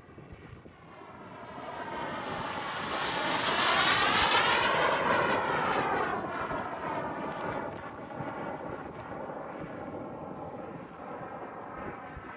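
A radio-controlled model jet flying past. The jet's whine and rush swell to a peak about four seconds in, then fade away as it goes by, the pitch sweeping up and then down as it passes.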